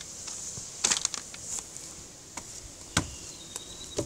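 A few light taps and knocks, the sharpest about three seconds in, over a faint steady high hiss.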